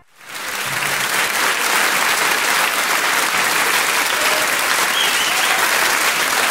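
Crowd noise: a dense, steady din of many people, fading in over the first half second.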